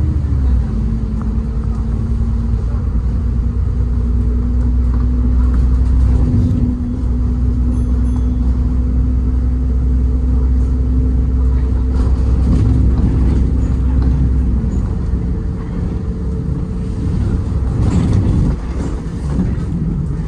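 City bus running, heard from inside the passenger cabin: a steady low rumble with a constant drivetrain hum that fades out about three-quarters of the way through.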